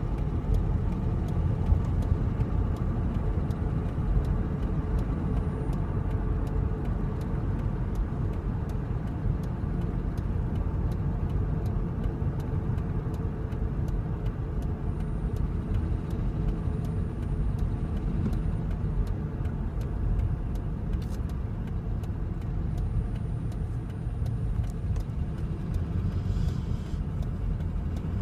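A road vehicle driving, a steady low rumble of engine and road noise.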